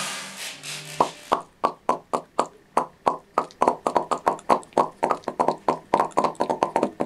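A hissing swell for about a second, then a quick run of sharp popping sounds, roughly three to four a second, for popcorn kernels bursting open.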